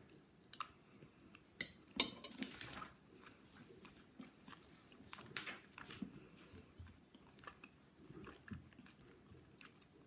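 A person chewing a mouthful of food, with a few sharp clicks of a fork against a plate, the sharpest about two seconds in.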